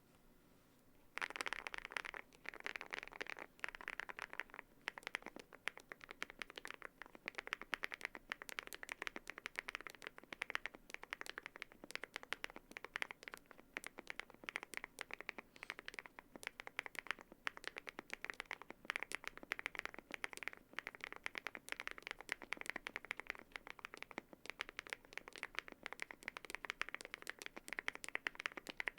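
Fast continuous typing on a Yunzii AL98 mechanical keyboard with lubed Keygeek Y3X switches and PBT keycaps: a dense run of keystroke clicks, several a second, starting about a second in.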